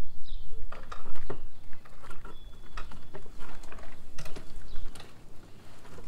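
Irregular small clicks, taps and scrapes of loosened screws and the louvered plastic refrigerator access vent panel being handled on a camper's outside wall, over a steady low rumble.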